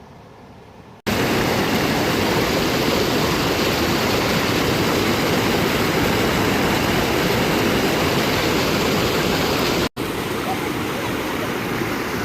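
Waterfall pouring on a river: a loud, even rush of water that cuts in abruptly about a second in and breaks off for an instant near the end before carrying on slightly quieter.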